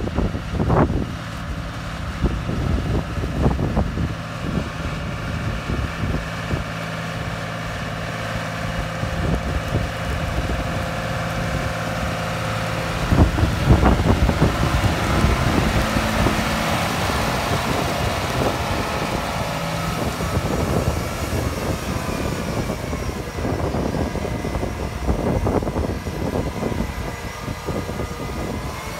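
John Deere 7230R tractor's six-cylinder diesel engine running as the tractor drives up, passes close and moves away, loudest about halfway through; its pitch drops for a couple of seconds toward the end and climbs again. Wind buffets the microphone.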